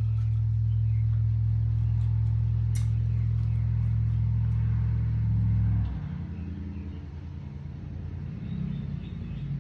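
A steady low engine hum that drops about six seconds in to a quieter, wavering rumble.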